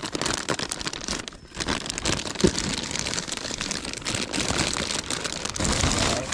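Thin clear plastic bag crinkling and rustling as hands work it open, with a brief lull and then one sharp snap about two and a half seconds in.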